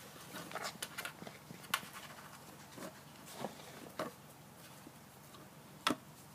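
Kittens playing: irregular light taps, scuffles and clicks of paws and play, with a sharper knock near the end.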